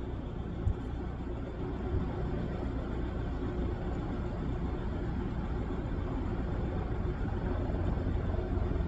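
Steady low engine rumble, growing slowly louder toward the end.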